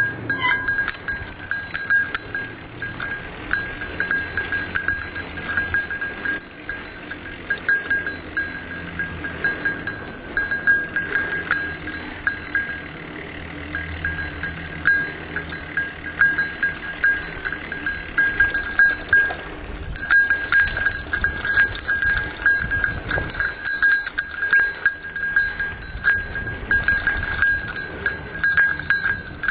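A small bell jingling continuously, warning other riders, over the rumble and knocks of a mountain bike riding a rough trail.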